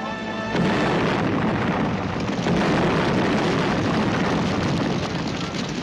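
A large explosion goes off about half a second in and carries on as a long, dense rush of a fireball burning out.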